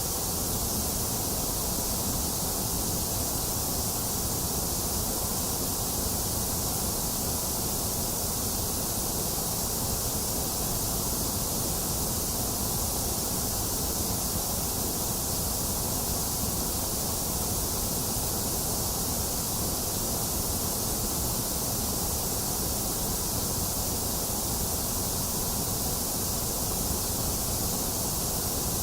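Steady white noise: an even, unchanging hiss with no rhythm or events, strongest in the high treble and with a hollow in the upper middle.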